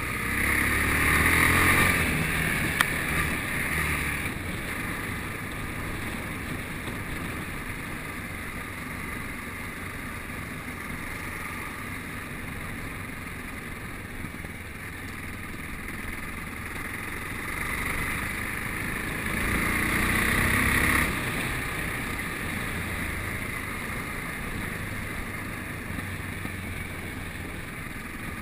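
Yamaha XT660Z Ténéré single-cylinder motorcycle engine running steadily while being ridden, heard from an onboard camera. It surges louder twice with rising pitch under acceleration, at the start and again about two-thirds through, and each surge cuts off sharply.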